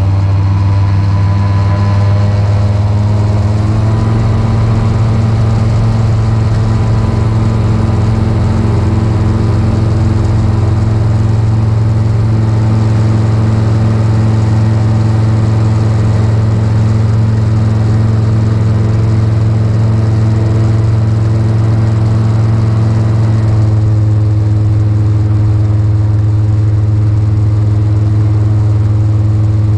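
Magni M24 gyroplane's engine and pusher propeller running up to takeoff power, climbing in pitch over the first few seconds and then holding a steady drone through the takeoff roll and liftoff, heard from inside the cockpit.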